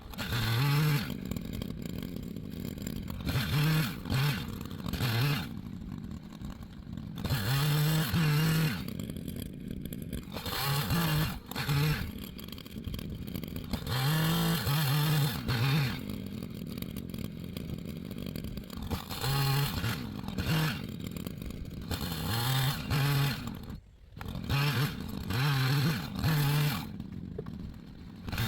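Echo CS-590 Timber Wolf two-stroke chainsaw cutting wood, revving up to full throttle in about eight bursts and dropping back to a lower idle between cuts.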